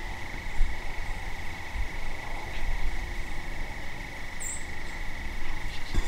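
Steady evening chorus of crickets, one continuous high-pitched trill with no breaks, over a low rumble. A single brief high chirp sounds about two-thirds of the way through.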